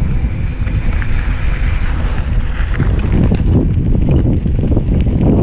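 Wind buffeting the microphone over a mountain bike's tyres rolling fast on a dry dirt trail, with short clicks and rattles from the bike starting about two seconds in.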